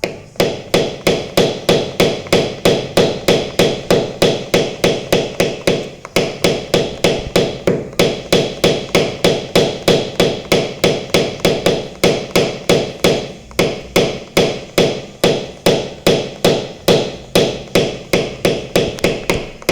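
A small hammer taps a car body panel in a steady, even rhythm of about three light strikes a second, the work of tapping out hail dents.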